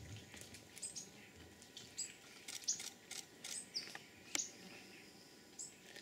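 Giant otter chewing an armored catfish (acari): faint wet crunches and clicks scattered throughout, with one sharper crack about four and a half seconds in. Brief high chirps come and go.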